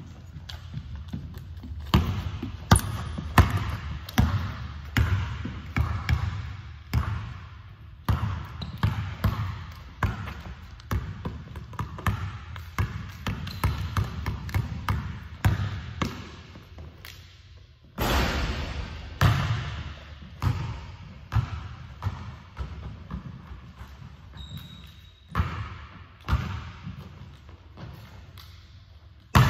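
Basketball being dribbled on a hardwood gym floor, a steady run of sharp bounces about one to two a second, each one echoing around the large empty hall.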